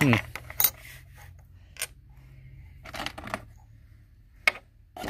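Metal medallion pendant clicking and tapping as it is handled and set down on a tabletop: a few separate sharp clicks, with a quick cluster of them about three seconds in.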